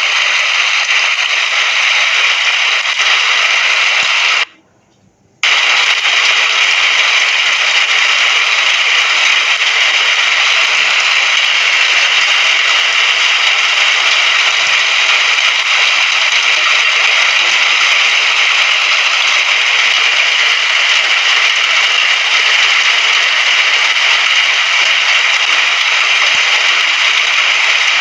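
Recorded rain: a steady, even hiss of rainfall that cuts out to near silence for about a second some four and a half seconds in, then resumes as before.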